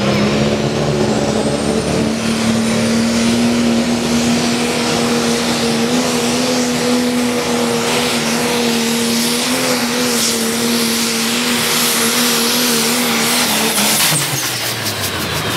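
Modified pulling tractor's engine running flat out under load as it drags the weight sled, a steady loud drone with a high whine climbing over the first few seconds. About fourteen seconds in, the engine is throttled back and its pitch falls away.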